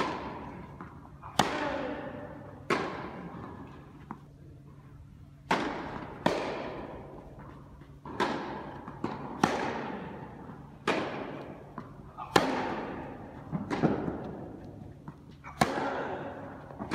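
Tennis rally: sharp cracks of racket strings striking the ball and the ball bouncing on the court, about one impact every second or so, each echoing and dying away in a large indoor tennis hall.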